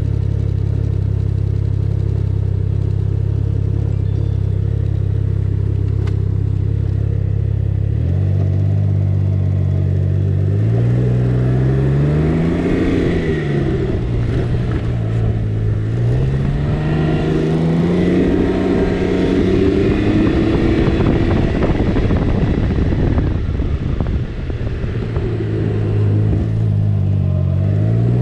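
Can-Am Ryker Rally's 900 ACE three-cylinder engine idling steadily, then pulling away about ten seconds in. Its revs rise and fall several times as the throttle is opened and eased, and climb again near the end.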